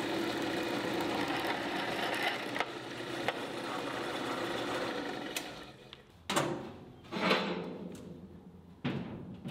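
Floor drill press running and drilling through steel plate held in a vise, a steady motor hum with cutting chatter. It stops about five and a half seconds in, and three separate heavy knocks follow over the last few seconds.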